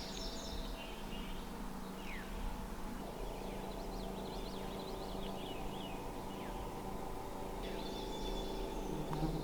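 Outdoor ambience: small birds chirping with short, quick falling calls, over a faint steady hum.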